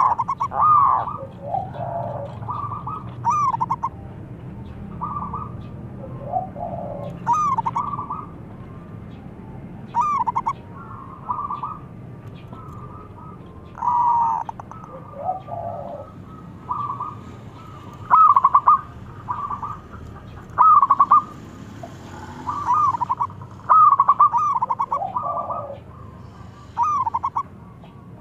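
Zebra dove (perkutut) cooing: a run of short, rapidly trilled coo phrases, repeated every second or two with brief pauses between runs.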